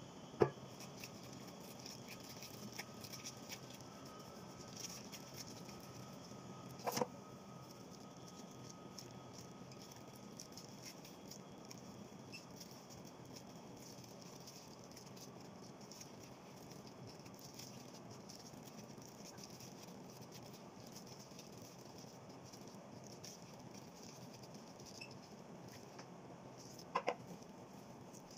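Soft handling sounds of bread dough being stretched, pressed and divided on a glass board, with faint tapping and rustling of gloved hands. Three short sharp knocks against the board: one about half a second in, one near seven seconds, one near the end.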